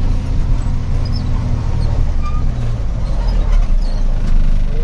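Truck engine running steadily while driving, a low continuous hum.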